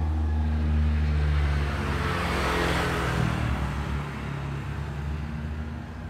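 A motor vehicle running and passing by: a low engine hum under a rushing noise that swells to a peak about halfway through and then fades.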